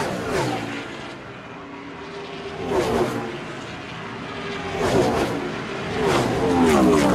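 Racing-vehicle pass-by sound effects, four in a row about two seconds apart. Each engine note swells and drops sharply in pitch as it goes by.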